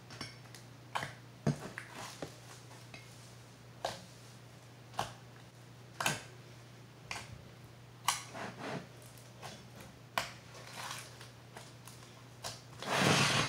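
Slime being handled and squeezed, giving scattered small clicks and pops, with one longer, louder squish near the end.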